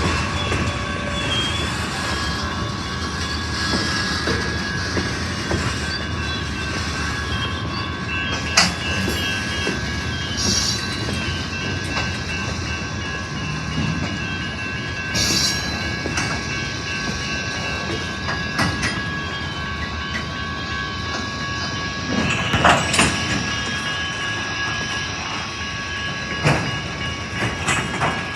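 Union Pacific train cars rolling past, wheels clicking over the rail joints with a steady high wheel squeal and occasional sharp clanks.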